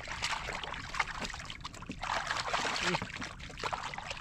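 Shallow muddy water splashing and sloshing as hands grope through it for fish, in uneven surges with small sharp splashes.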